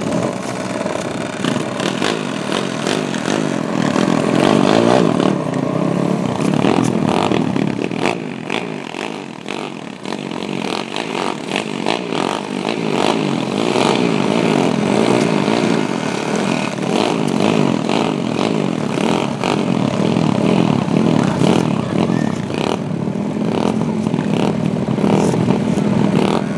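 Several small mini-trike engines idling and revving together at the start line, a tangle of pitches rising and falling, dipping briefly about a third of the way through.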